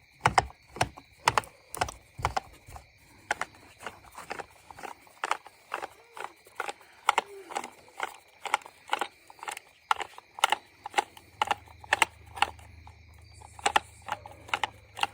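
Echo Speed Feed 400 trimmer head clicking steadily, about two clicks a second, as it is turned to wind the new line in.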